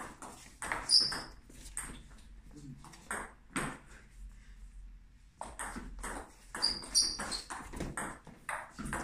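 Table tennis rally: the ball clicks off the bats and the table in quick succession, with a brief pause about halfway before play picks up again. A couple of short high squeaks come in among the clicks.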